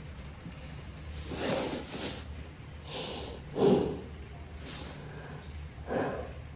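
A man breathing heavily, with three louder breaths about a second and a half, three and a half and six seconds in, the middle one the loudest, over a low steady hum.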